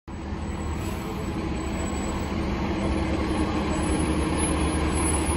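Transit bus engine running as the bus pulls up close, a steady low hum that grows gradually louder.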